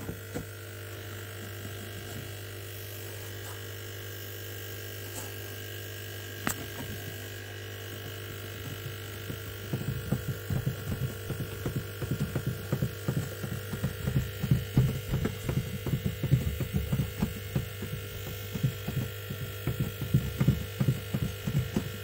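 A hand pressing and rubbing on the plastic inner wall of a fridge box, working black two-part putty patches down to seal its holes. From about ten seconds in this gives a run of dull, irregular knocks and rubs, several a second, over a steady electrical hum.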